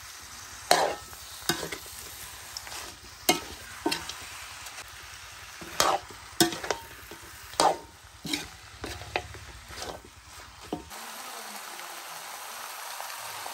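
A metal ladle scrapes and knocks against a metal wok as goose pieces in chili paste are stirred and fried, over a steady sizzle. The stirring stops near the end, leaving only the sizzle.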